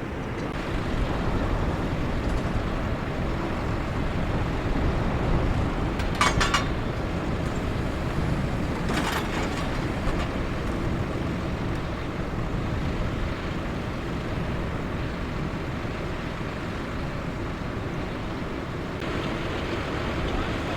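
Tractor engine running steadily under the load of pulling a plough. Two short, sharp sounds cut in about six and nine seconds in.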